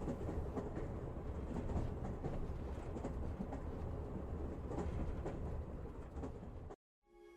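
Low, steady rumbling noise with faint scattered clicks, with no music or voice in it. It cuts off suddenly to silence near the end.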